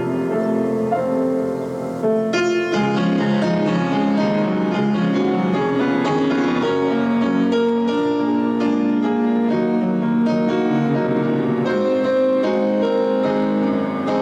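Offertory music on piano, sustained chords and melody notes, growing fuller about two seconds in.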